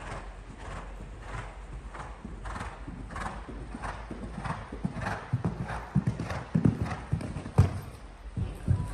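A five-year-old show-jumping gelding cantering on sand arena footing, its hoofbeats falling in an even rhythm. Heavier hoof thuds come in the last few seconds as it takes off over a fence and lands.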